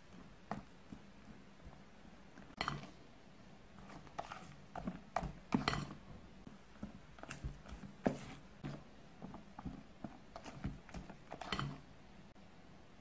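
A spatula folding thick batter in a glass bowl: irregular soft knocks and scrapes of the spatula against the glass, the loudest about two and a half and five and a half seconds in.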